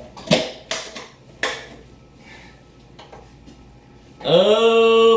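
A few sharp knocks and clatters against the blender jar, then about four seconds in the countertop blender's motor starts, its pitch rising quickly and settling into a steady whine as it blends eggs and sugar.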